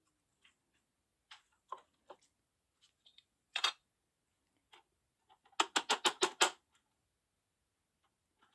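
Hard plastic clicks and knocks from a push-down vegetable chopper being put together and handled: a few single clicks, then a quick run of about seven knocks a little past the middle.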